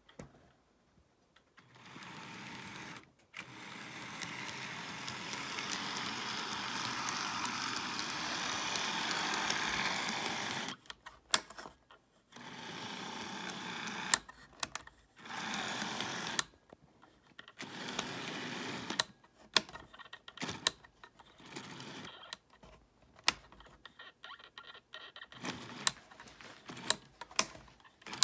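HO scale model diesel locomotive running on its track: the small electric motor and gears whirr, growing louder over several seconds as the train comes close. Later the sound comes and goes in short stretches, with sharp clicks as the wheels pass over rail joints.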